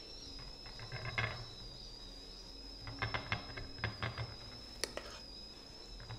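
A metal spoon clinking and scraping against stainless steel idli plates as thick chocolate batter is spooned into the moulds: a few light clicks about three to four seconds in, and a sharper tick near five seconds. A faint steady high whine runs underneath.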